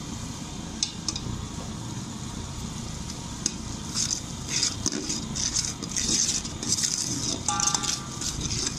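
Slotted steel spoon stirring powdered spices into hot oil and garlic-ginger paste in a steel pot, with sizzling and metal clinks and scrapes against the pot. The stirring and sizzling become busier about four seconds in, with a brief metallic scrape ringing near the end.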